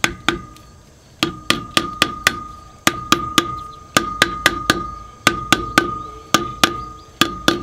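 Brass-headed hammer tapping a metal dust cap onto a trailer wheel hub to seat it. About three light strikes a second, with a short pause about a second in, and a steady metallic ring carrying between the blows.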